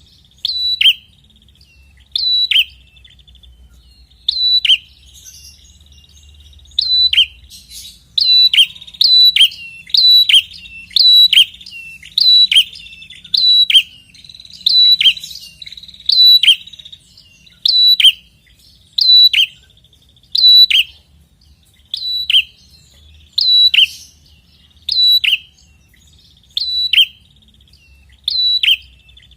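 Prenjak kepala merah (red-headed prenjak) calling insistently: short, sharp, high notes that drop in pitch, repeated about once or twice a second without pause.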